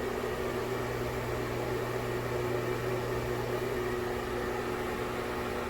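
Broan Heat-a-vent bathroom exhaust fan running steadily: its shaded-pole motor and impeller give a buzzy hum over the rush of air.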